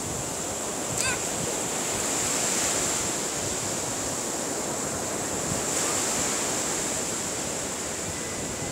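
Shallow surf washing up the sand and draining back, a steady hiss of water with wind on the microphone. A short high call cuts through about a second in.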